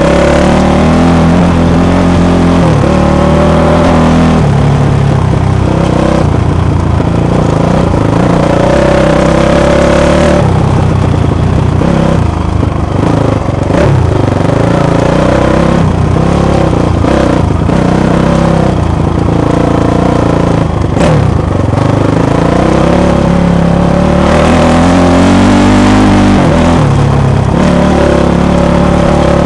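Dirt bike engine ridden hard, revving up and easing off in steps as it changes gear along a twisting trail. Loud and close.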